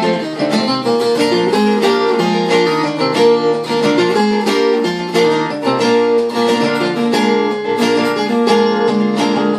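Viola caipira playing a fast instrumental passage of rapidly plucked notes between sung verses.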